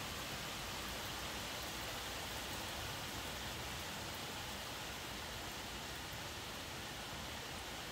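Steady rain falling, heard as an even hiss without any thunderclap.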